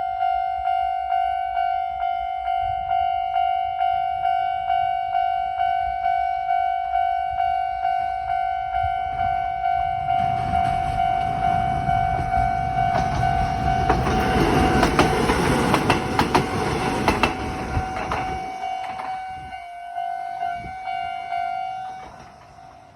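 Railway level-crossing alarm ringing in a steady pulse, about two rings a second. A train passes through the crossing from about ten seconds in to about eighteen, its wheels clacking over the rail joints. The alarm stops near the end.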